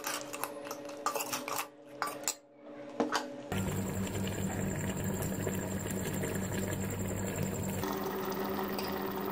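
A steel ladle scraping and clinking against an aluminium cooking pot, a run of short clicks and scrapes over the first three seconds or so. After that, a steady low hum and hiss.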